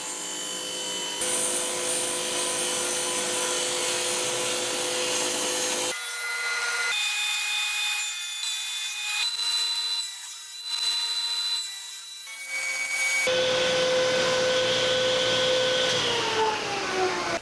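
Table saw running and ripping thin 1/8-inch strips of wood with a push jig, in several cuts with abrupt jumps between them. Near the end the blade's whine falls in pitch as the saw winds down after being switched off.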